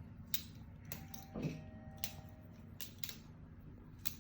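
Terrain 365 Invictus balisong (butterfly knife) being flipped by hand: sharp metal clicks as the handles swing round and clack shut, about seven at uneven intervals.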